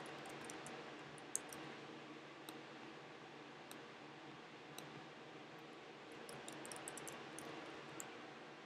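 Faint, irregular keyboard key clicks as text is typed, with one louder click about a second in, over a steady low hiss.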